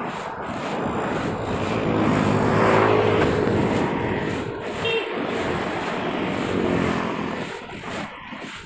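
A car passing close by on the road, its engine swelling to a peak about three seconds in and fading away, followed by a smaller second swell of passing traffic near the end.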